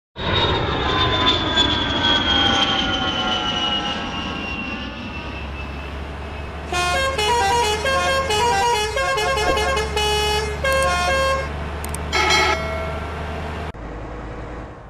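Truck horn sounding for about five seconds with a slowly falling pitch. Then a musical horn plays a quick tune of short stepped notes, with a short blast after it, over a low engine hum.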